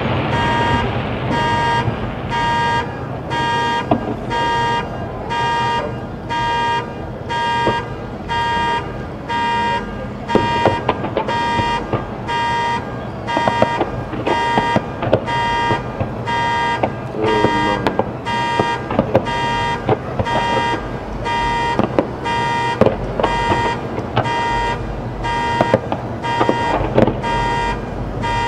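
An electronic alarm beeping steadily, a single pitched beep repeating about four times every three seconds. Under it, fireworks bangs and crackles, with deeper booms near the end.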